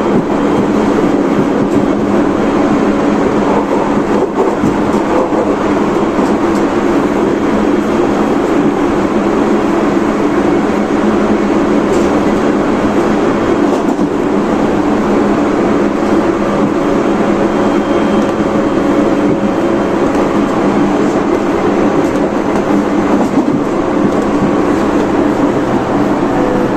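Interior running noise of a Tobu 30000 series electric train at speed: a steady rumble of wheels on rail, with faint tones from its Hitachi IGBT VVVF traction inverter and motors.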